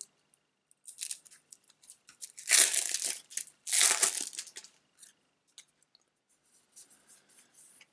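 Plastic shrink-wrap crinkling and tearing as a deck of large game cards is unwrapped. The two loudest bursts come about two and a half and four seconds in, with lighter rustles and small clicks of card handling around them.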